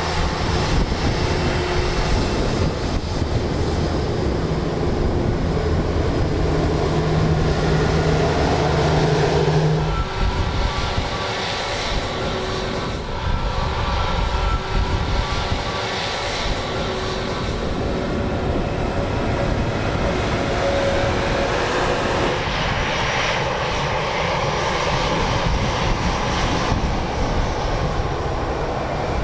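Jet airliner engines running, a steady roar with whining tones. The sound changes abruptly about ten seconds in and again a little past twenty-two seconds.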